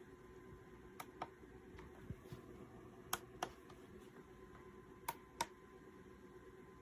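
Faint paired clicks, the two about a quarter second apart, repeating about every two seconds over a low steady hum.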